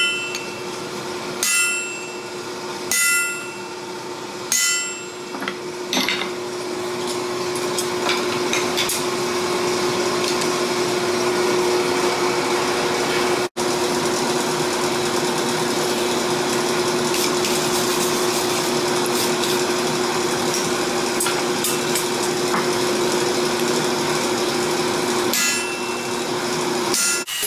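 Hand hammer striking hot steel on an anvil: four ringing blows about a second and a half apart. A steady noise from the running forge follows, with lighter clinks over it.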